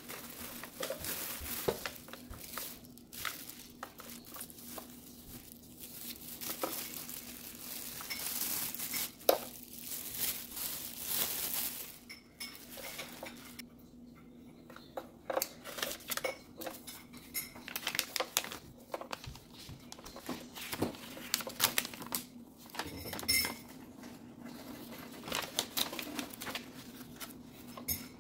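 Clear plastic bag crinkling and rustling as it is pulled off a sandwich maker for most of the first twelve seconds, followed by scattered clicks and knocks as the appliance is handled on the countertop and paper leaflets are shuffled.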